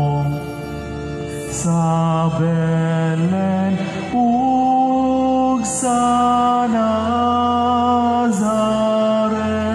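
A voice singing a slow Cebuano Marian hymn in long held notes that step up and down in pitch, with short breaths between phrases.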